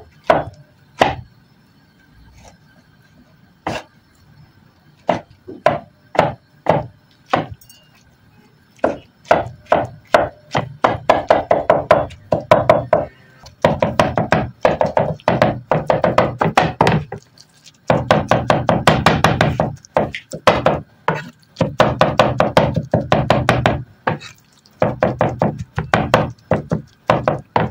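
Cleaver chopping soft roasted eggplant with garlic and chili on a wooden cutting board. At first single chops a second or so apart, then fast runs of rapid chopping, several strokes a second, in bursts of a few seconds each.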